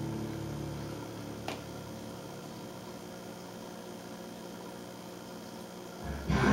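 Faint steady hum with a single soft click about a second and a half in; music starts up loudly right at the end.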